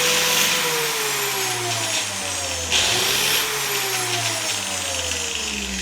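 Angle grinder running at reduced speed while a pruning-shear blade is sharpened on it: two short grinding passes, one ending just under a second in and another beginning near the three-second mark, with the motor's pitch slowly dropping between them.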